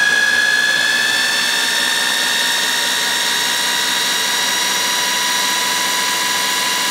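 Countertop blender with a stacked chopping blade running continuously, mincing peeled garlic cloves: a loud, steady motor whine.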